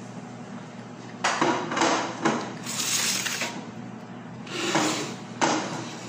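Plates and bowls being moved about on a table: several knocks and clinks, with a brief scraping rustle in the middle and a sharp knock near the end.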